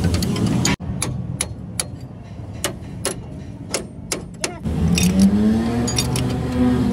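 Sharp, irregular metallic clinks of hand tools on steel, a few a second, while working on a truck's torque-rod bracket. A motor vehicle engine hum stops suddenly just under a second in, and an engine comes in again about five seconds in, rising in pitch.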